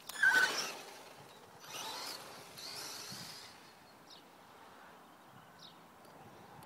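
HPI E-Firestorm Flux 10T brushless electric RC stadium truck launching hard on asphalt: a sudden burst of motor whine and tyre noise just after the start, then a second, longer burst about two seconds in as it speeds away, fading after that.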